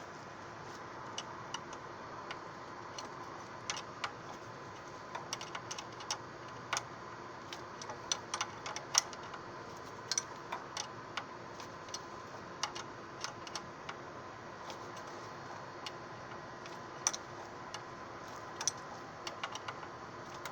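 Irregular light clicks and taps of hand tools and metal fittings being worked on an aircraft hydraulic brake line, over a steady background hum.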